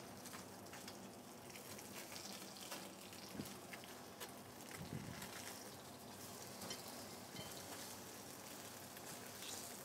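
Shallots and finely chopped anchovies sizzling gently in a steel sauté pan, a steady faint hiss with small crackles.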